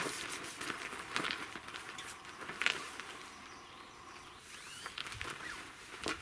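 A Snow Peak tarp's fabric rustling and crinkling as it is pulled and lifted by hand, with scattered light clicks and a sharp tick about two and a half seconds in.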